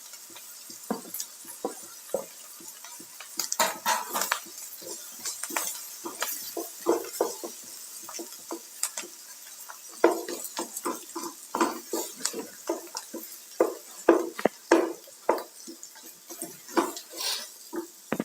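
Stirring a thick potato and green pea mixture in a non-stick pan. The spoon makes irregular scrapes and knocks against the pan, with a faint sizzle underneath.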